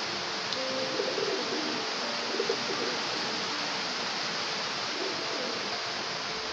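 Steady rain with runoff water flowing across the ground, an even hiss. A few short low tones sound over it in the first three seconds and again briefly near the end.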